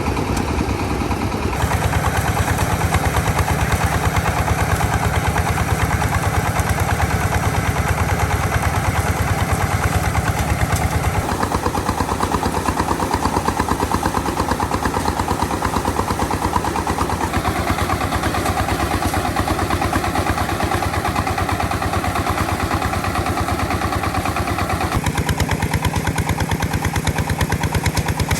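Single-cylinder diesel engine of a công nông farm truck running with a rapid, steady chug, its note shifting a few times along the way.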